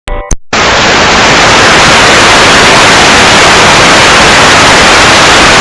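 Very loud, harsh static hiss, a white-noise sound effect, that starts about half a second in after a brief glitchy electronic blip and cuts off abruptly.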